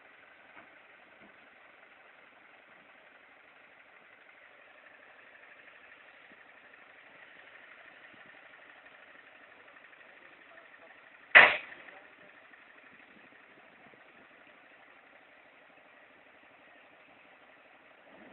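Steady engine hum of a recovery tow truck running beside the ditch, with one sharp bang about eleven seconds in.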